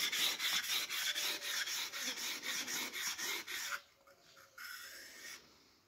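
A carpenter's steel tool blade is rubbed back and forth on a sharpening stone in quick, regular strokes, several a second, which gives a hissing scrape as the edge is sharpened. The strokes stop just before the four-second mark, and a shorter run follows about a second later.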